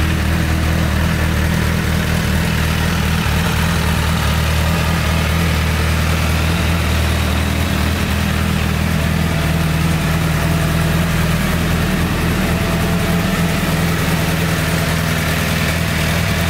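Honda Fireblade's inline-four engine idling steadily through an aftermarket Akrapovič silencer, with no revving.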